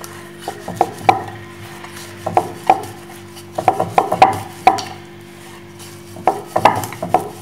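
Wooden rolling pin rolling out a stuffed paratha on a round wooden board, with wooden clacks and knocks coming in short bursts every second or two as the pin and board knock together.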